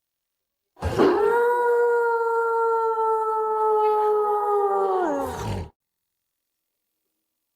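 Werewolf howl sound effect: one long howl starting about a second in, held at a nearly steady pitch for over four seconds, then dropping in pitch and cutting off abruptly.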